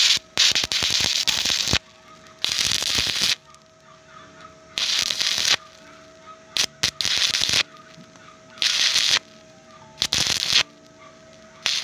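Stick (shielded metal arc) welding on a steel tube truss joint: the electrode's arc crackles in short bursts, struck and broken about seven times, each burst lasting half a second to a second and a half.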